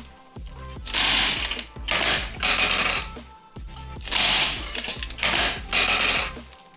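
Background music with a steady bass and a repeating rhythm of bright, rattling bursts in groups of three, the pattern coming round about every three seconds.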